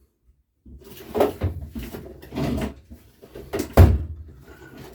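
Rummaging among parts, with several knocks and clatters; the loudest, a sharp knock, comes about four seconds in.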